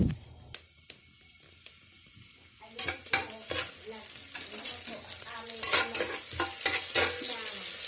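Native chicken going into a pot of hot oil with sautéing garlic, onion, ginger and bell pepper: a sizzle starts suddenly about three seconds in and keeps building. Sharp knocks and clinks of stirring in the pot run through the sizzle.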